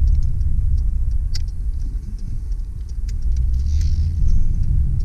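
Inside a 1995 Ford Taurus on the move: low road and tyre rumble with the engine, and a few light clicks and knocks as it rolls over bumps in the road. The rumble eases about two seconds in, then builds again.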